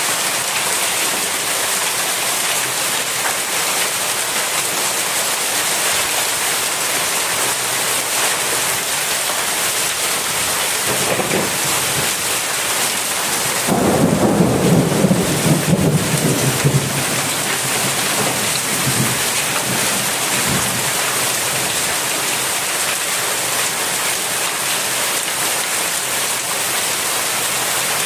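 Heavy rain pouring down steadily in a thunderstorm. About halfway through, a clap of thunder comes in, loudest for a few seconds, then rumbles away.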